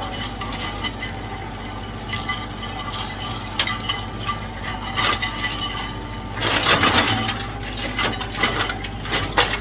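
Kioti CK3510SE tractor's diesel engine running steadily, with irregular sharp clinks and rattles over it, thickest in a burst about seven seconds in.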